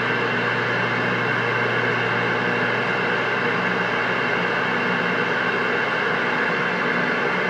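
Steady hiss of static from a CB radio's speaker, cutting off abruptly near the end.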